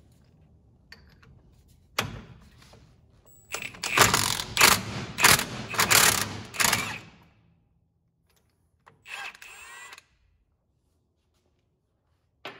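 Impact wrench with a 24 mm socket hammering the castle nut off a tie rod end, in several short bursts over about three seconds, then a shorter, quieter run about two seconds later.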